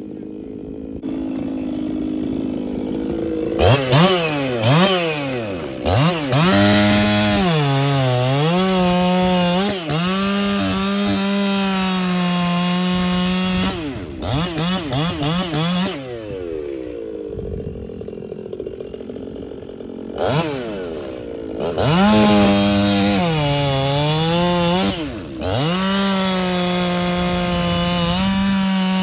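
Two-stroke gas chainsaw cutting through a log. It idles, is revved up in short blips, then runs at full throttle in the cut with its pitch sagging under load. Midway it falls back to idle, is blipped again, and goes back into a second long cut.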